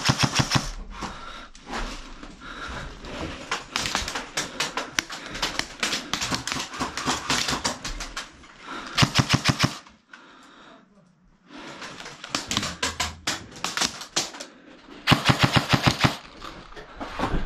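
Airsoft guns firing rapid full-auto bursts, the strongest bursts at the start, about nine seconds in and about fifteen seconds in, with a short lull just after ten seconds.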